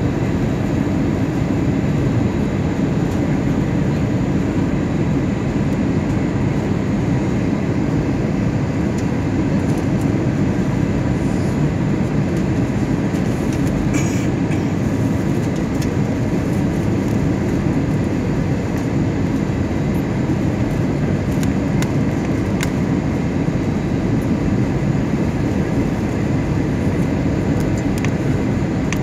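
Steady airliner cabin noise on a night landing approach: jet engines and rushing airflow as an even low rumble, with a faint steady whine above it.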